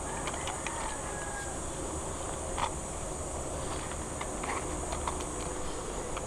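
Steady, high-pitched insect chorus, with scattered faint clicks and rustles over it.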